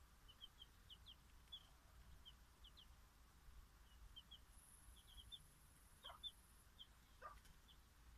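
Faint peeping of bantam chicks: short high cheeps scattered throughout, with two lower, falling calls in the last couple of seconds.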